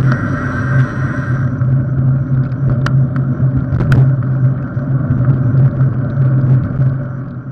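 Polygon Stratos S7 road bike on carbon wheels rolling along an asphalt path, heard as a steady rumble with a low hum, with a couple of sharp clicks about three and four seconds in. The sound fades out near the end.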